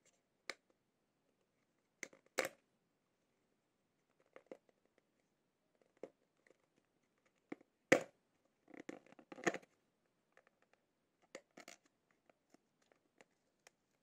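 Small white cardboard retail box being handled and opened by hand: a string of short scrapes, taps and rustles, loudest about eight seconds in, with a cluster of rustling just after.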